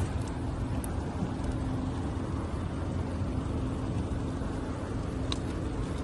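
Boat motor running steadily: a low rumble with a constant hum over it, and a faint tick about five seconds in.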